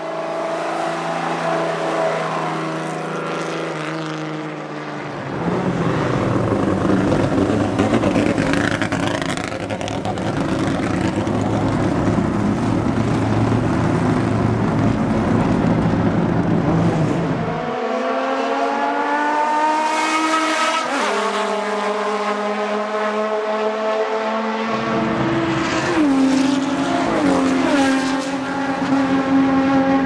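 Inline-six engines of TC Bonaerense race cars. First one car holds steady revs; from about five seconds in, several engines idle together in a dense, uneven mix. Later an engine accelerates with its pitch climbing and stepping through gear changes, and near the end a steady engine note holds.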